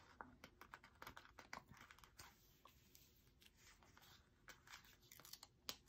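Faint rustling and crinkling of paper sticker sheets being handled and stickers peeled, with scattered small ticks and one sharper click near the end.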